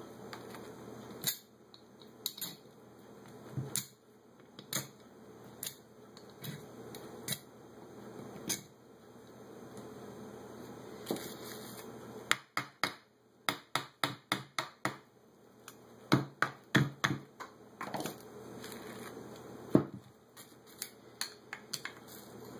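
Metal carburetor parts and a screwdriver clicking and clinking while a Holley 600 carburetor's fuel bowl is taken apart by hand: irregular sharp taps, with a quick run of them about halfway through.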